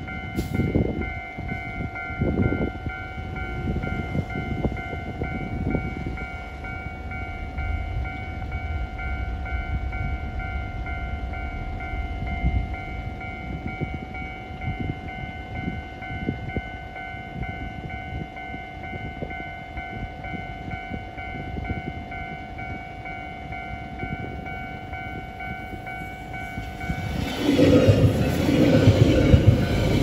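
Level-crossing warning alarm ringing steadily over a low rumble. About 27 seconds in, a JR Hokkaido 789 series 1000 subseries electric express train rushes past the crossing at speed, its wheels clacking over the rail joints.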